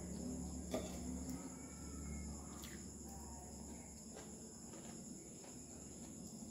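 Crickets trilling steadily in the background, with a few scattered clicks of eating.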